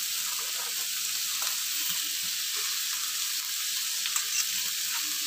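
Chopped onion, carrot and green beans sizzling in hot oil in a metal kadai over a full flame: a steady high hiss with a few soft clicks.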